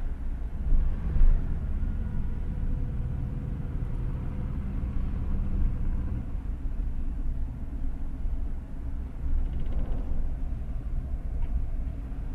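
Car driving on the road: a steady low engine and road rumble, with two brief louder thumps about a second in.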